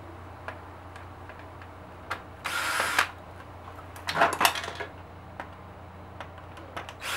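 A cordless drill/driver runs in short bursts, backing screws out of a plastic vacuum-cleaner housing. It runs for about half a second a couple of seconds in and again near the end, with a cluster of clicks and rattling in between.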